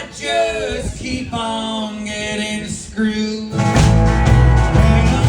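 A live rock band playing: a sung vocal line over light accompaniment, then the full band with drums and bass comes in loudly about three and a half seconds in.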